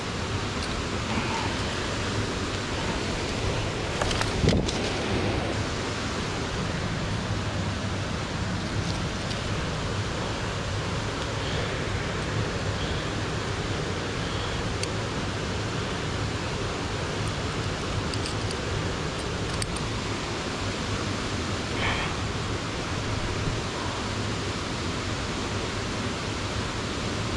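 Steady rushing of mountain stream water, an even hiss without a tune, with a faint knock about four and a half seconds in.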